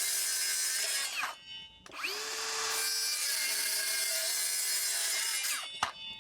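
Mellif 18-volt brushless cordless circular saw cutting plywood. It spins down about a second in, is started again and rises to speed, runs steadily, then winds down near the end with a sharp click.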